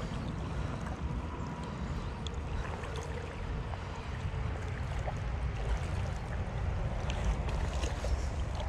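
Flowing river water with wind rumbling on the microphone, and a few faint ticks.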